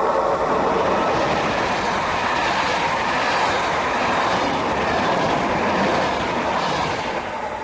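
Passenger train hauled by an electric locomotive passing close by at speed. Its wheels make a loud, steady rush of rolling noise on the rails, which falls away near the end as the last coaches go past.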